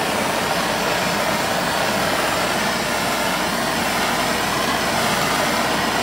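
Steady rushing hiss of a MAPP gas hand torch flame held on a steel part as it heats.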